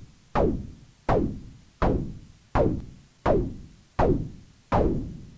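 Pink noise from a TDA1524-based voltage-controlled noise and tone filter module, shaped by an envelope generator into short percussive hits. Seven hits are evenly spaced, about one and a half a second. Each starts sharply and dies away over about half a second, its hiss losing its top end first as it fades.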